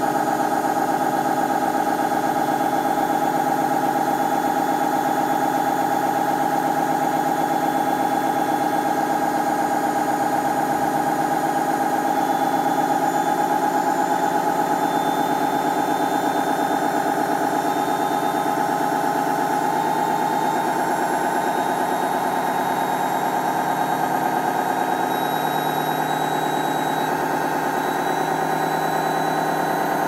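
Hotpoint First Edition FEW12 washing machine drum spinning with a loud, steady rumbling noise from its badly worn, failing drum bearings.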